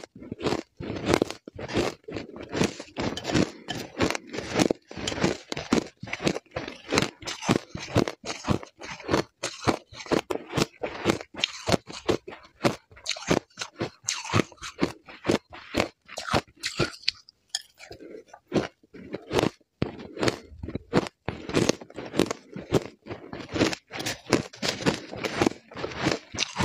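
Shaved ice dusted with matcha being crunched and chewed, a fast, steady run of crisp crunches with a short pause about two-thirds of the way in.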